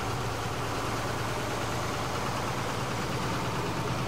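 Tractor engine idling steadily with a low, even hum.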